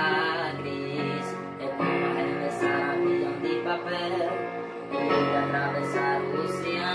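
A young man singing to chords played on a Yamaha electronic keyboard with a piano-like sound.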